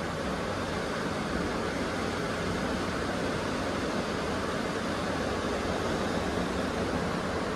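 Ocean surf breaking on the beach: a steady, even rush with no single wave standing out.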